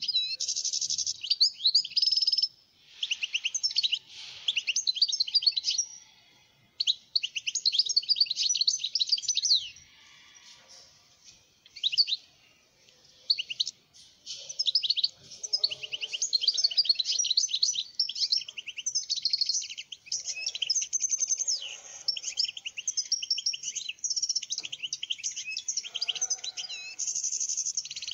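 European goldfinch singing: long runs of fast, twittering phrases, broken by a few short pauses.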